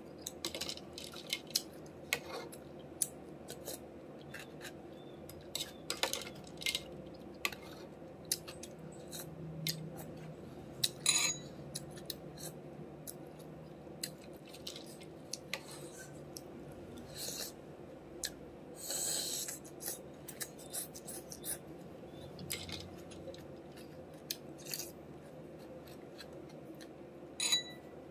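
Metal spoon clinking and scraping against a ceramic bowl while eating, with chewing and mouth sounds. These come as scattered sharp clicks and short noisy bursts over a steady low hum, the longest burst about two thirds of the way through.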